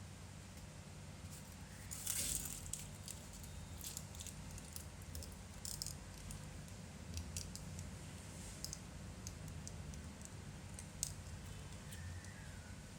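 Small tools scraping and clicking against a phone during a repair, loudest in a short scrape about two seconds in, over a steady low hum.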